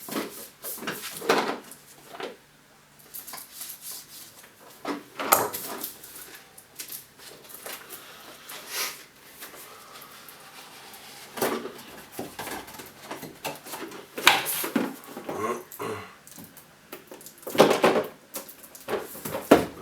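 Cardboard and plastic packaging handled and opened by hand: irregular rustling and scraping with a few louder crinkles.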